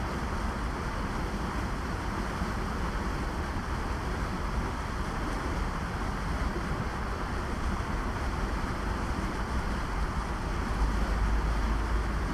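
Wind noise buffeting the action-camera microphone over a steady rush of river water, with a stronger gust about eleven seconds in.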